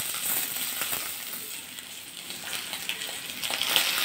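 Parshe fish and mustard oil sizzling in a metal kadai as the fried fish are lifted out, with light scrapes of a metal spatula against the pan.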